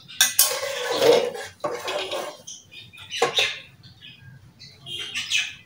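Long metal spoon stirring and scraping a wet rice mixture in an aluminium pressure cooker, in several short, irregular bursts.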